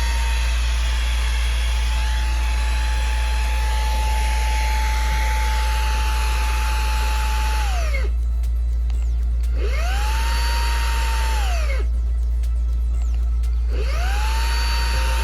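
Xiaomi Mi mini portable vacuum cleaner motor running with a high steady whine, then switched off about 8 seconds in so the whine falls away. It is switched on again briefly, spinning up and running for about two seconds before winding down, and is switched on once more near the end.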